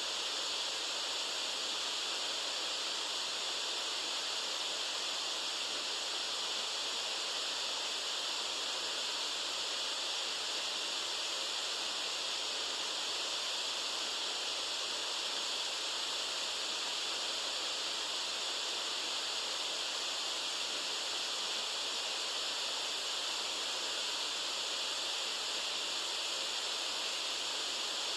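Steady white noise: an even, unchanging hiss that is strongest in the upper-middle range and has very little bass.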